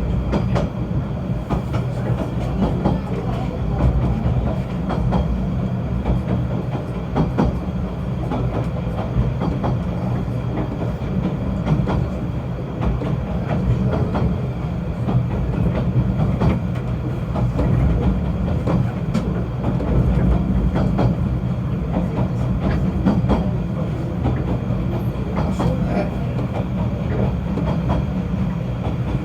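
Snowdon Mountain Railway rack train running: a steady low rumble with irregular clicks and knocks throughout.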